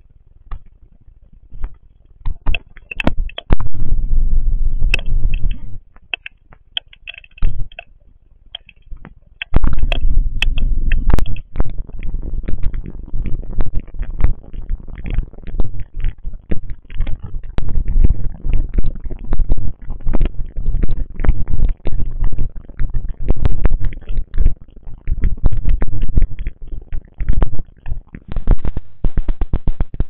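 Rainstorm recorded through the Wyze Video Doorbell's built-in microphone: a dense crackle of rain over a low rumble, loud and distorted. It is quieter for the first couple of seconds and again for a few seconds about a quarter of the way in.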